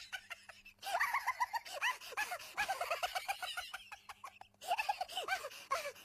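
Budgerigars chattering: a fast run of short chirps, whistles and clicks, with two brief pauses, one about half a second in and one about four seconds in.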